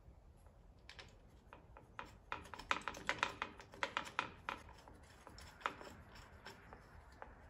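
Quick, light clicks and taps of a motorcycle hand guard's bracket and small mounting hardware being handled and fitted at the handlebar mirror mount. The clicks come in a rapid cluster about two seconds in and last a couple of seconds, with one more single click a little later.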